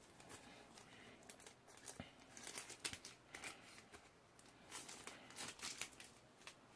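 Faint crinkling and tearing of a foil trading-card booster pack wrapper being torn open, in two bursts of crisp rustles.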